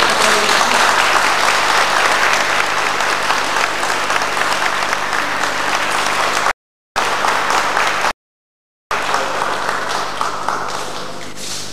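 Audience applauding, with the sound cutting out completely twice for under a second. The applause thins and dies down near the end.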